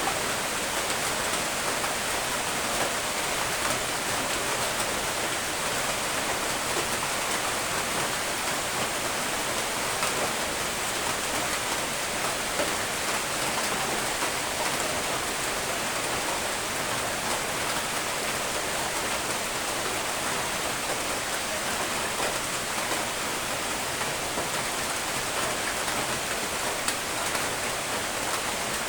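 Steady rain falling, an even hiss of many drops with faint scattered patters on a surface.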